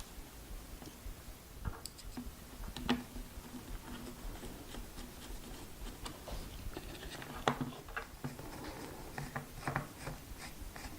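Light clicks, taps and scratching of hands fitting a control board and its wiring into an electric unicycle, with a few sharper clicks scattered through.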